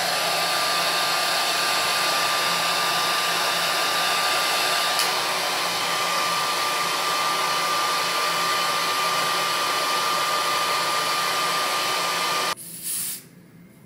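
Handheld hair dryer running steadily on its cold setting, a rush of air with a steady high whine, blowing on freshly sprayed wig-lace adhesive to set it. It switches off near the end, and a brief hiss follows.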